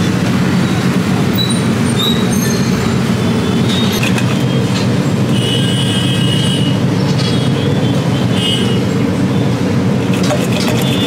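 A loud, steady, low machine drone, like a kitchen fan or blower running, with a few light clinks of steel utensils against a steel bowl scattered through it.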